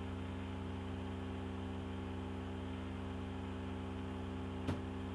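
Steady low electrical hum with a row of faint higher overtones and light hiss, typical of mains hum picked up by the recording, with one faint click near the end.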